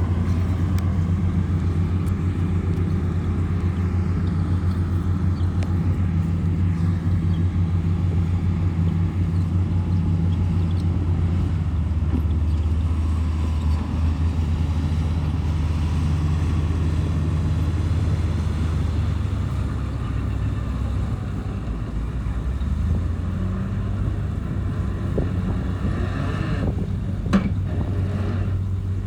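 Bulldozer's heavy diesel engine running steadily, its pitch shifting a couple of times as the load changes, with a single sharp knock near the end.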